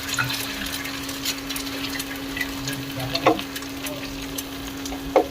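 Egg frying in a pan: light, scattered crackles over a steady hum, with two knocks about three seconds and five seconds in.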